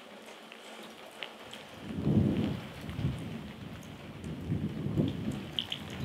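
Rain falling, scattered drops ticking, while gusts of wind buffet the microphone in irregular low rumbles. The first gust swells about two seconds in and another comes near the end.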